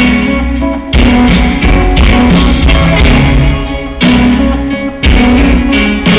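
Live band playing an instrumental passage with a heavy bass line, heard loud from the audience.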